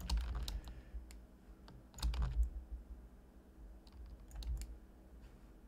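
Computer keyboard keystrokes in a few short clusters, near the start, around two seconds in and again around four seconds in, with quieter gaps between.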